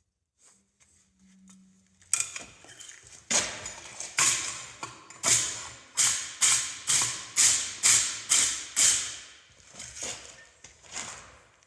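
Hammer blows on hot steel at the anvil: about fourteen sharp, ringing strikes starting about two seconds in, roughly two a second and quickening in the middle, as a leaf blank is forged.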